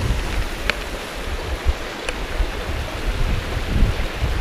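Wind gusting and buffeting the microphone, with a steady rushing hiss under it and two faint short ticks.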